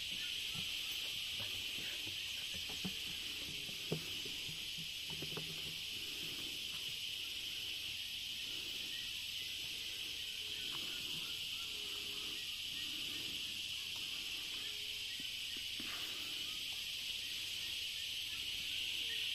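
Cicadas singing: a steady, high, even hiss. A few short low calls and faint knocks come through it now and then.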